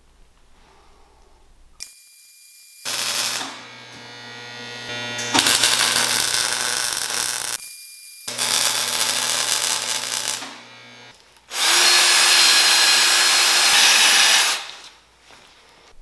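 Arc welding on the mini bike's steel tube frame, in several separate runs a few seconds long with short pauses between; the last run is the loudest.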